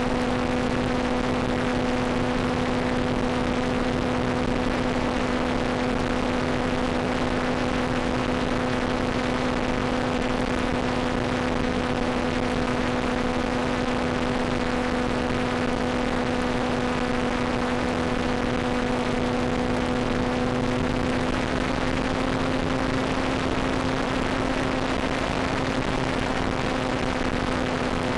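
Steady droning hum with hiss, carried over the analog FPV video downlink's audio channel from the Volantex Ranger EX in flight; the pitch edges up slightly about twenty-two seconds in.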